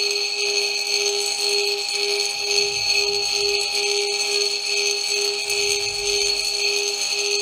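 Tibetan singing bowl sung by rubbing a wooden mallet around its rim: a steady low hum that throbs evenly, with higher ringing overtones above it. The small crystal spheres sitting in the bowl are set vibrating against its floor.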